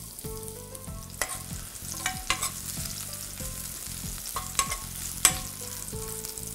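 Sliced red onion frying in hot oil in a pan: a steady sizzle, with a utensil clicking against the pan about half a dozen times as it is stirred.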